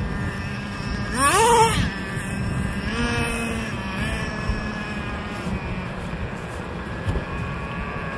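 Small nitro engine of a radio-controlled truck revving. Its pitch rises sharply into a loud whine about a second in, then it runs at a steadier high pitch with smaller rises around three and four seconds.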